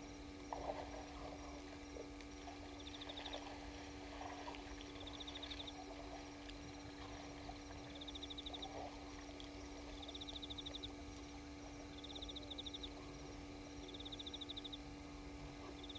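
Night ambience at a waterhole. A short, high, rapid trill from a calling night animal repeats every two seconds or so, with a faint, fast, regular chirping pulse higher up, all over a steady low hum.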